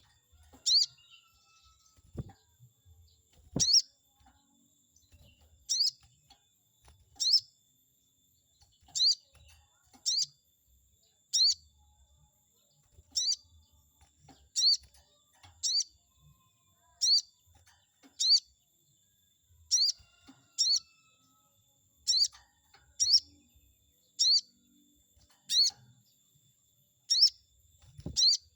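A sogon bird calling a short, sharp, high 'cuit' note over and over, roughly once every second or so, a lure call meant to make rival sogon birds answer. Two faint knocks sound early on.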